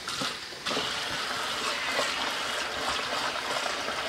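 Tap water running steadily into a bowl of bulgur being rinsed, starting about half a second in.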